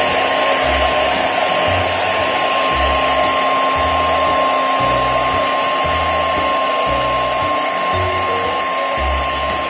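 Hair dryer blowing steadily, a constant rushing noise with a thin high whine, over background music with a pulsing bass line.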